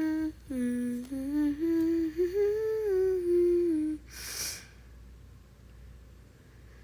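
A person humming a short wordless tune, a few held notes stepping up and down, for about four seconds, followed by a short hiss.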